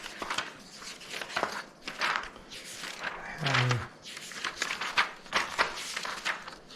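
Hands handling small parts and packaging: irregular rustling and crinkling with scattered light clicks and knocks.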